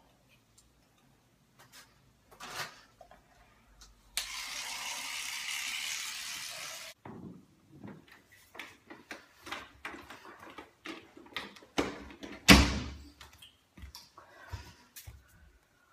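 Interior door and footsteps: scattered knocks and steps, with one loud door thump about twelve and a half seconds in. Before them, a steady hiss lasts about three seconds.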